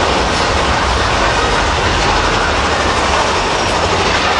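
Big Thunder Mountain Railroad mine-train roller coaster running along its track, heard from on board: a steady, loud noise with a strong low rumble.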